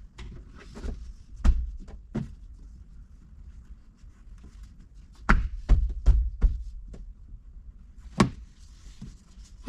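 Thumps and taps of a rubber door-opening pinch-weld seal being pressed back onto the body flange by hand along the headliner edge. A few single knocks come first, then a quick run of four about five seconds in, then one more near the end.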